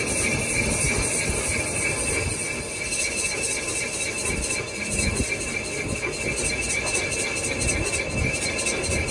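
Engine lathe turning a cast pulley blank, the tool cutting across the spinning face, with a steady motor-and-gearing rumble under a constant high-pitched whine.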